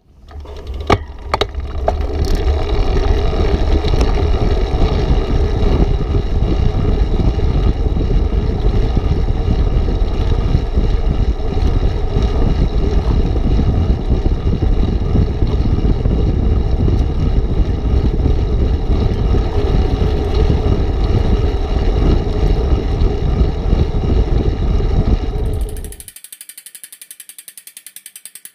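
Ride noise from a Brompton folding bicycle on asphalt heard through an action camera held close to the bike: steady wind rush and road rumble with a few clicks early on. About 26 seconds in it cuts off, leaving a faint, fast, regular ticking.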